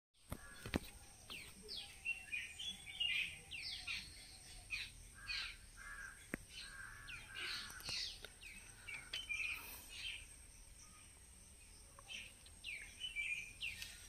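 Small birds chirping: a busy run of short, quick chirps, going quieter for a couple of seconds a little after the middle, then resuming.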